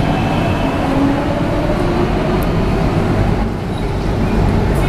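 MTR K-train (Hyundai Rotem electric multiple unit) pulling out of an underground platform, its cars rumbling past close by, with a faint rising whine from the traction motors as it gathers speed.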